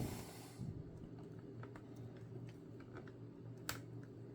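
A screwdriver taking small screws out of a plastic laptop base: scattered faint clicks and taps, the sharpest about half a second in, near two seconds and near the end, over a steady low hum.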